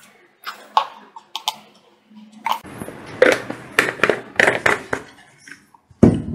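Clicks, taps and handling noise of kitchen items: a plastic spoon tipping turmeric powder into a steel mixer-grinder jar and a plastic bottle being picked up and set down, with a heavier knock near the end.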